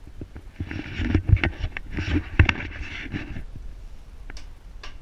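Maytag 72 two-stroke engine firing irregularly, a run of uneven pops and thumps that thins out about three and a half seconds in.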